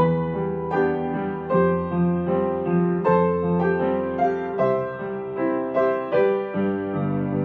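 Slow, gentle piano music, with melody notes and chords struck one after another about every half second to a second and left to ring.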